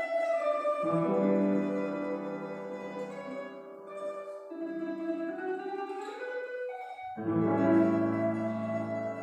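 A slow, sad melody on a plucked string instrument, its notes held, with piano accompaniment. The line climbs through the middle and a new phrase enters about seven seconds in.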